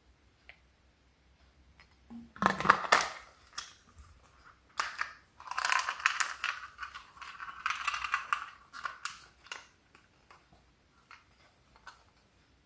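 Thin plastic dog water bottle and its flip-up bowl being handled and fitted together: crackling and clicking plastic, a short bout about two seconds in and a longer one from about five to nearly ten seconds.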